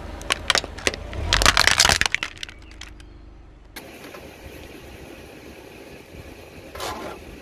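A car tyre rolling over something brittle and crushing it, over the low rumble of the car. A few sharp cracks build to a dense burst of crunching and crackling about a second and a half in, then fade. After that only a faint steady background remains, with one short scrape near the end.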